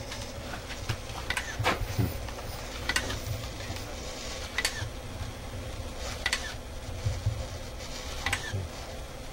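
Scattered light clicks and ticks, one every second or two, over a steady low hum.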